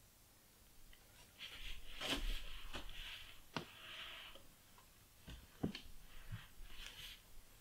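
Rustling and a few light knocks as a person climbs up and kneels on a wooden tabletop. The rustle runs for about three seconds, with sharp knocks a little after the middle of it and about two seconds later.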